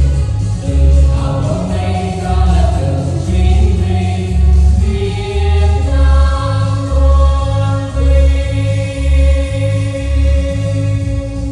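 Three voices singing a march song in harmony over a backing track with a steady bass beat. About halfway through they settle into a long held note.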